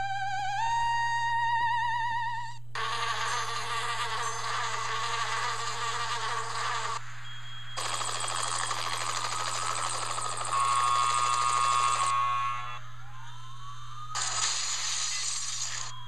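A run of canned sound effects played one after another from a sound-effects button device: a warbling tone that rises in steps, then two long stretches of insect-like buzzing, a short swoop up and down, and a final hissy burst near the end.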